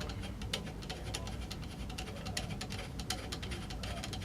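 Flathead screwdriver turning out the large screw that holds an AK47's pistol grip: a steady run of small, irregular ticks and scrapes of metal on metal.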